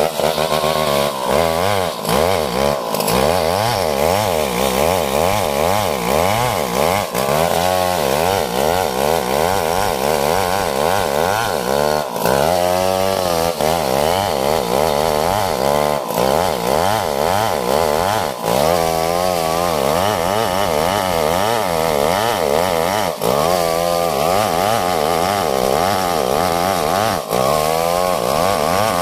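STIHL 070 two-stroke chainsaw running at high revs through a log, its pitch rising and falling over and over as the load on the chain changes.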